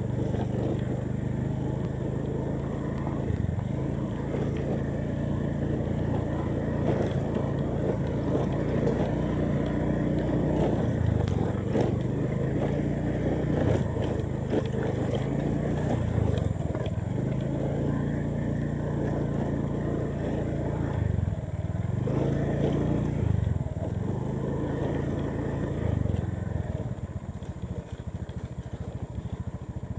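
Motorcycle engine running at low riding speed, its pitch dipping and picking up again several times as the throttle is eased and reopened, with scattered knocks and rattles from the bike over rough ground. Near the end the engine drops lower and quieter.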